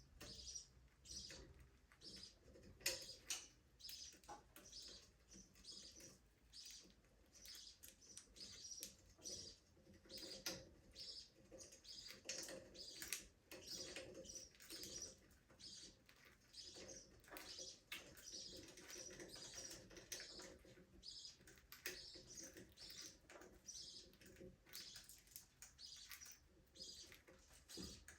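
Budgerigars chattering in an aviary: rapid, overlapping high chirps and warbles, with scattered short sharp clicks and wing flutters.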